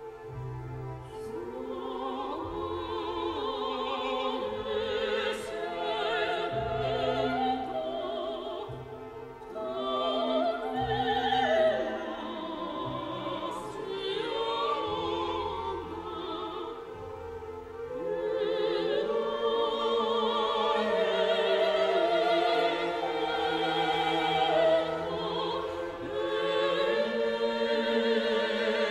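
Operatic singing with orchestral accompaniment: sustained voices with wide vibrato over strings, the film's score.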